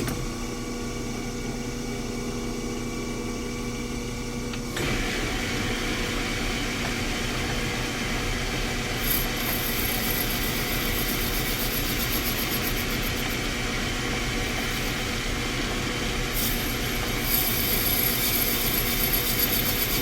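Steady machine running noise with a constant hum, becoming louder and busier about five seconds in, with stretches of high, fine rattling or hiss around the middle and near the end.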